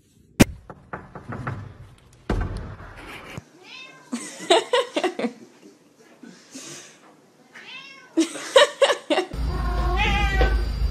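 Cats meowing several times in short, bending calls, in three groups: about four seconds in, about eight seconds in, and near the end. A sharp knock sounds about half a second in.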